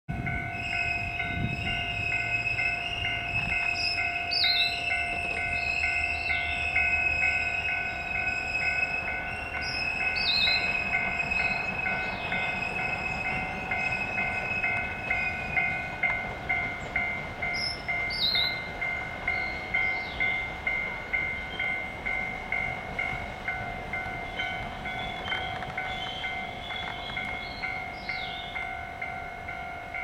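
Railway bell ringing steadily, about two strikes a second: the 'dang dang' of the Alishan Forest Railway's little train. Birds chirp over it several times in short falling calls, and a low rumble sits under the first few seconds.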